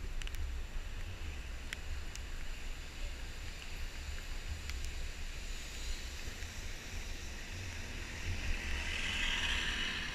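Vehicle in motion: a steady low rumble with wind buffeting the microphone, and a hiss that swells near the end.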